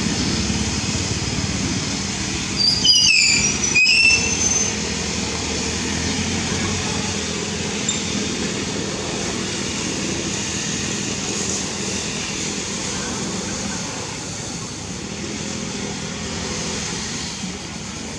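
A young macaque squeals twice, short high-pitched cries sliding downward, about three and four seconds in, over a steady rushing background noise.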